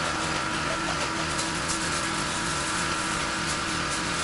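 Pressure washer running steadily: an engine's hum under the hiss of the high-pressure water jet rinsing vinyl siding.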